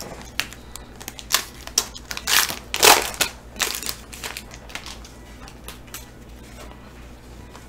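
Foil pack of Prizm football trading cards being torn open at its crimped end and crinkled in the hands: a run of sharp crackles, loudest about three seconds in, dying away by about five seconds.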